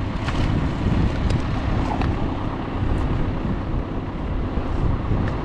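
A steady low engine rumble from a vehicle or machine running at the work site, with a few faint clicks.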